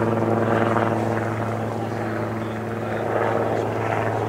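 A steady, low-pitched mechanical drone with a ladder of overtones, like a motor running continuously.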